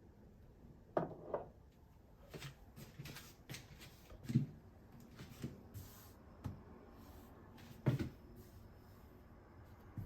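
Scattered light knocks and clicks of household things being handled, the loudest about a second in, around four seconds in and near eight seconds.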